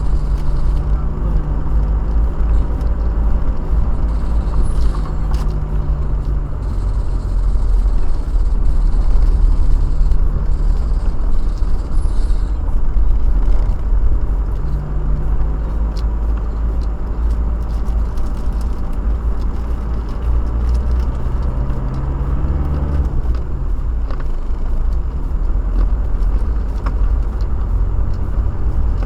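Car driving, heard from inside the cabin: steady low engine and road rumble, with the engine note shifting down and back up a few times as the speed changes.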